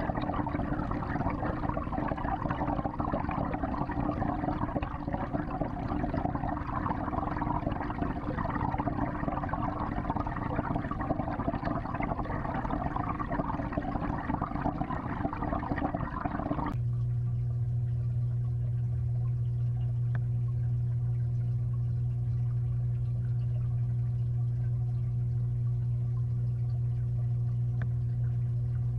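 Water in a 55-gallon aquarium: a steady rushing, churning sound of moving water. About two-thirds of the way through it cuts off abruptly, and a steady low hum with only a faint hiss takes over.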